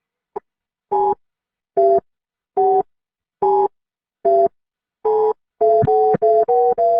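Electronic telephone-style tones: short two-note beeps repeating about once a second, the pitch shifting slightly from beep to beep, then coming faster and closer together near the end. A single click comes just before the first beep.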